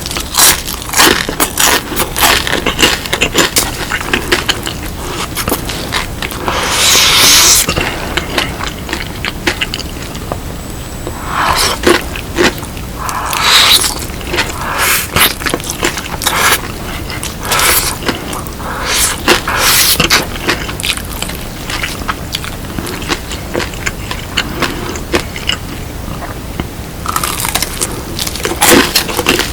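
Close-miked eating of crispy seasoned fried chicken: a long run of sharp crunches and chewing, with a few longer noisy stretches about a quarter of the way in, near the middle and near the end.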